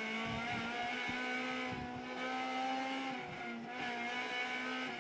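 Honda Civic N2 rally car's engine heard from inside the cabin, held at high, fairly steady revs with brief dips about two seconds in and again just past three seconds.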